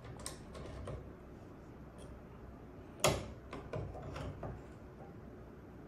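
Katana lock decoder being inserted into a lock cylinder and seated: faint metal scraping and light clicks, with one sharp click about three seconds in and a few softer clicks just after it.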